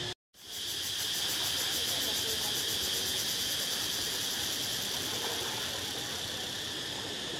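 Steady high-pitched insect chorus, a continuous fast-pulsing chirr that cuts out completely for a moment right at the start.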